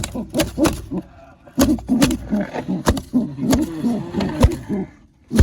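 A nesting pigeon defending its newly hatched squabs: low growling coos mixed with a run of sharp slaps, a parent bird being aggressive on the nest.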